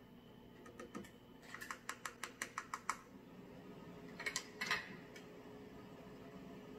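A spoon clicking and tapping against the pot while a thick sauce is stirred: a quick run of light clicks, about five a second, then a short cluster of louder clicks a little later, over a faint steady hum.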